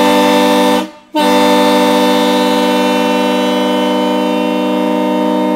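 Multi-chime train air horn, run off compressed-air tanks, blasting a loud steady chord. It cuts off for a moment about a second in, then sounds again in one long blast.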